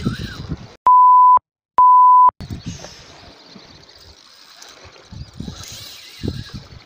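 Two identical steady electronic bleeps of one pitch, each about half a second long and half a second apart, edited into the track with the original sound cut to dead silence around them. Afterwards only faint outdoor background noise remains.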